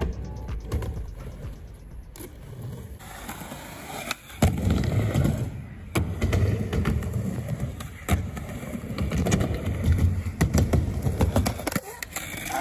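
Skateboard wheels rolling on skatepark ramps, a low rumble that is faint for the first few seconds and louder from about four seconds in, with several sharp clacks of the board and trucks striking the surface.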